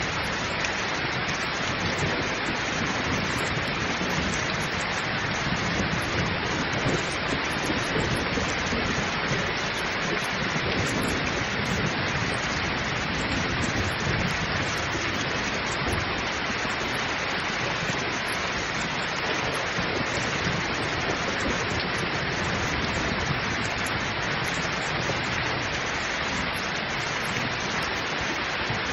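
Heavy rain pouring steadily, a dense even hiss of drops, with a low rumble of thunder that swells and fades underneath.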